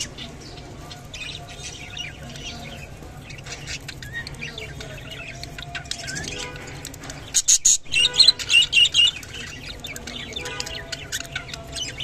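Budgerigars chirping and chattering in short, high, scattered calls, with a louder run of chirps about seven to nine seconds in.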